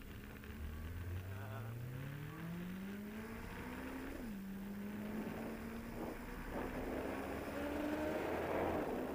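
Motorcycle engine accelerating under load, its pitch climbing steadily, then dropping sharply at an upshift about four seconds in and climbing again more slowly. Wind noise builds toward the end as speed rises.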